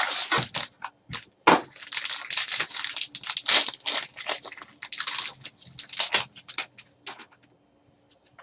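A sealed trading-card mini box being torn open by hand: a run of crackling, crinkling rips of packaging and cardboard, in quick short bursts, that stops about a second before the end.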